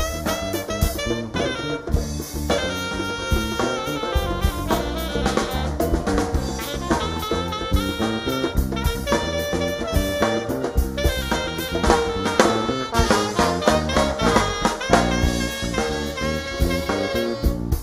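Alto saxophone improvising a fast solo over a live band, with drum kit and brass backing.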